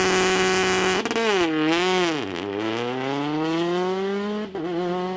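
Rally car engine held at steady high revs, then launched: about a second in, the note dips and wavers, then climbs steadily as the car accelerates away, with a short break near the end at a gear change.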